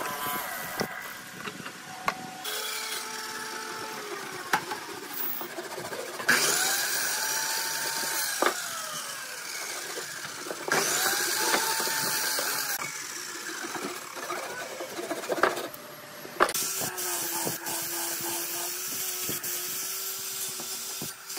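A run of woodworking tool sounds in separate bursts on wood, with motors running and cutting noise. Near the end, an angle grinder fitted with a sanding disc runs with a steady hum while sanding a pine board.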